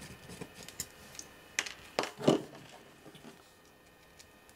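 Screwdriver and small metal parts clicking and knocking against the metal case of the instrument while its cover screws are undone: a few sharp separate clicks, the loudest about two seconds in, then quiet handling.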